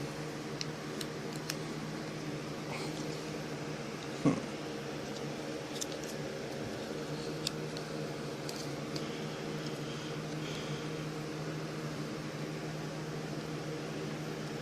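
Steady low machine hum in a small room, with scattered light clicks from handling and one sharper knock about four seconds in.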